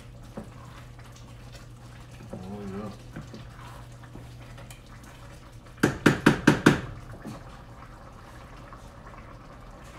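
A spoon rapped about six times in quick succession against the rim of the risotto pot, about six seconds in, over a steady low hum.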